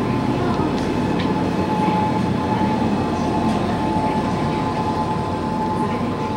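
Steady low rumbling room noise of a convenience store interior, with a thin steady high tone running through it and a few faint ticks.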